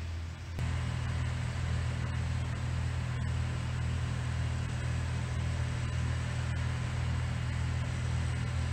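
Steady low rumble with a faint hiss of outdoor background noise, starting abruptly about half a second in.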